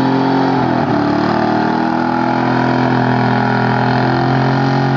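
Square-body Chevrolet C10 pickup's engine held at high revs during a rolling burnout, with a brief dip in revs about a second in before it climbs back and stays steady.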